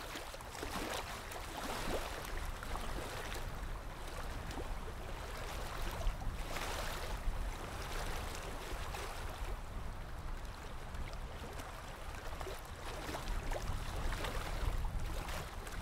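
Water lapping and splashing against a small boat's hull in irregular swishes, over a steady low rumble.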